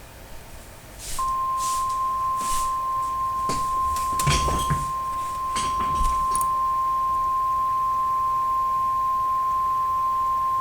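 Emergency alert warning tone, the single steady high tone of the weather-radio alarm sounded ahead of a severe thunderstorm warning. It starts about a second in and holds unbroken, over faint crackling static.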